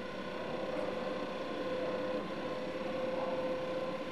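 Model mixers' small motor and right-angle gear drive running steadily, a hum with a steady whine over a hiss of churning noise.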